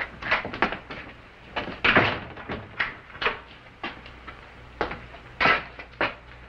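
Footsteps and a door opening and closing: a run of short knocks and thuds, the loudest about two seconds in.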